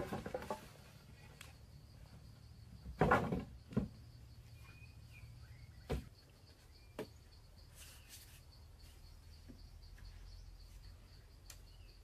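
Thin wooden poles knocking and clattering against each other as they are handled and laid across a pole frame: a clatter at the start and another about three seconds in, then a few single knocks. A steady high insect drone runs underneath.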